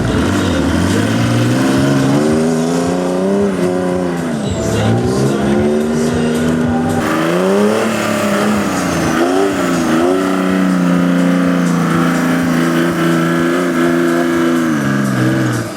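Off-road buggy engine revving hard, its pitch climbing and falling several times, then held at high revs for several seconds before dropping away near the end.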